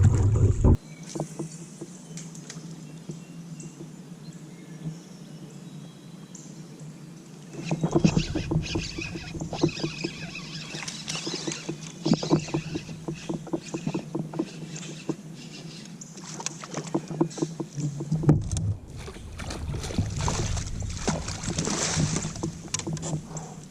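Irregular clicks, knocks and splashes of gear and water on a fishing kayak, starting about eight seconds in over a faint steady hum.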